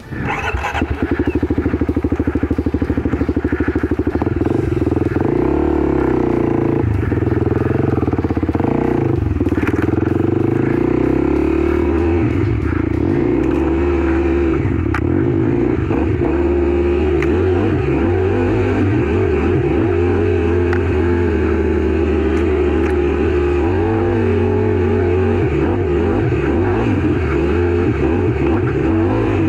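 Kawasaki KLX300 dirt bike's single-cylinder four-stroke engine running under way. Its note rises and falls with the throttle through the first ten seconds or so, then holds steadier.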